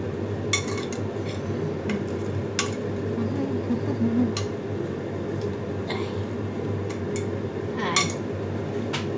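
Metal cookware clinking and knocking now and then, about eight to ten short strikes as pots, lids and utensils are handled, over a steady low hum.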